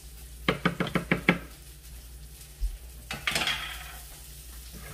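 A spatula knocked against a plastic blender jar and lid in a quick run of about six taps, shaking off purée, then a short scrape of the spatula a little after three seconds in.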